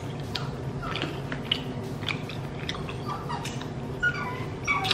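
Mouth sounds of someone chewing a burnt barbecued rib: scattered wet clicks and smacks, with a couple of short squeaky mouth noises near the end, over a low steady hum.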